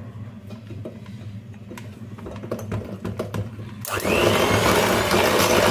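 Electric hand mixer beating flour into cake batter in a glass bowl: a low steady whir with light clicks of the beaters, then about four seconds in it gets much louder, its whine rising as it speeds up.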